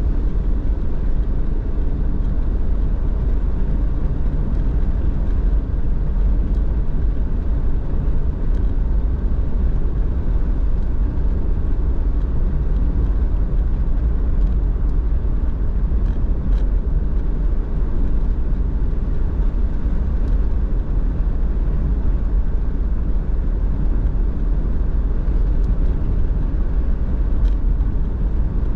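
A car driving steadily, its engine and tyre noise making a continuous low rumble, with a few faint ticks.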